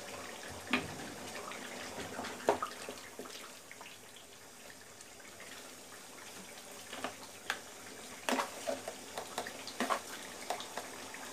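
A wooden spatula scrapes and taps against a nonstick karahi as a thick beef bhuna is stirred, with a couple of single knocks in the first few seconds and a run of scrapes and taps in the second half. Under it runs a steady hiss from the pan simmering on the gas burner.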